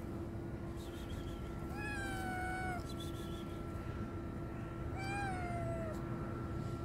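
Hungry stray kitten meowing twice, high-pitched calls about a second long that rise and then slide down, over a steady low hum.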